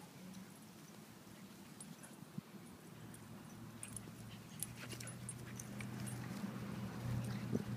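Small puppies play-fighting with a border collie on grass, giving faint whimpers and yips among scattered small clicks and scuffles. A steady low hum sits underneath and grows louder in the second half.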